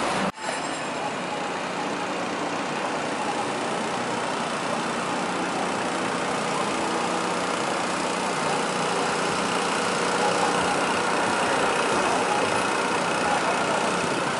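Steady city street traffic noise with a truck engine idling. The sound cuts out for a moment just after the start.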